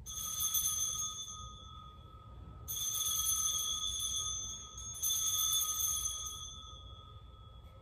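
Altar bells (sanctus bells) struck three times, each stroke ringing on for a couple of seconds before fading; rung at the elevation of the consecrated bread after the words of institution.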